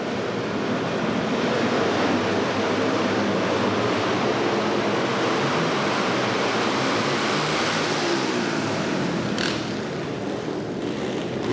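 A pack of flat-track racing motorcycles running hard together off the start and into the first turn. Their engines blend into a loud, rough rush of noise with wavering engine tones inside it. The noise eases slightly near the end, where there is one brief sharp sound.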